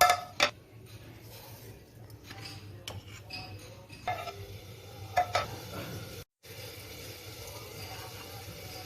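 A metal utensil clinking and scraping against cookware while food is stirred, with about six sharp, ringing clinks in the first five and a half seconds.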